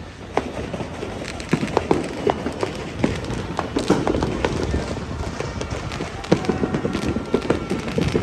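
New Year fireworks and firecrackers banging and popping irregularly, many reports overlapping, with people's voices underneath.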